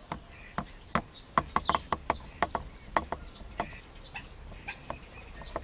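Short, sharp animal calls in an irregular series, with a quick run of about five between one and a half and two seconds in, over a faint steady high hum.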